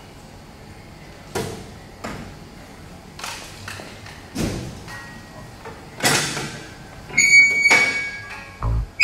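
Irregular sharp knocks and clatter as mold plates are handled and set at a hydraulic compression-molding press, about six knocks in all. Near the end, ringing tones and a bass beat come in as background music starts.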